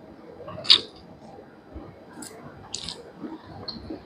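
Close-miked eating sounds: wet mouth clicks and smacks while chewing a mouthful of chicken curry and rice eaten by hand. The loudest click comes about a second in, with a few smaller ones later.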